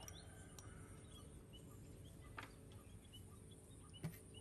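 Near silence with faint, scattered bird chirps. Two light clicks of kitchen utensils on a ceramic bowl, the louder one near the end as a fork touches the bowl.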